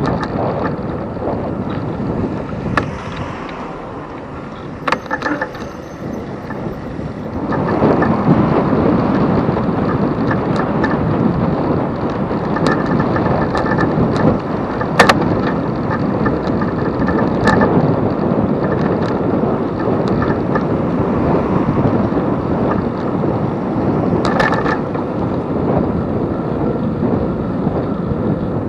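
Riding noise from a bicycle-mounted camera: wind buffeting the microphone over the hum of tyres on the road, with a few sharp clicks and rattles from the bike. The noise gets louder about a third of the way in.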